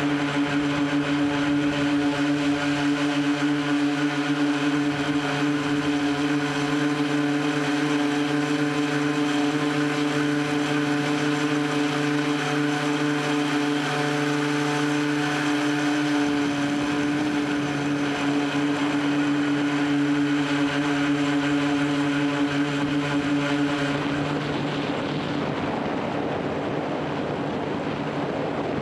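Multirotor tricopter's brushless motors and propellers running in flight, a steady, constant-pitch whirring buzz. About three-quarters of the way through the buzz fades and a rushing hiss takes over.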